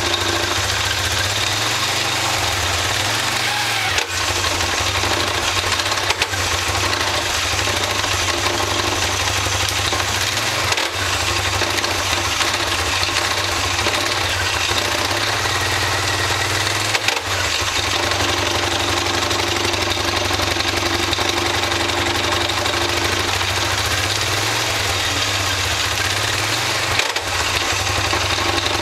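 2009 Polaris Sportsman 550's single-cylinder engine running loud, its drive-belt clutches uncovered, with about five sharp pops spread across the run. The owner takes the popping for a fault inside the transmission, on its right side.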